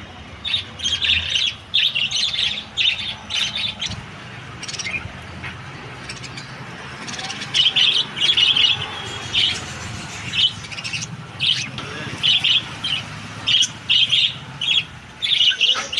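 Small pet parrots chirping, with sharp, high chirps in quick bursts: a cluster in the first few seconds, then a run of chirps through the second half. A faint low hum lies underneath.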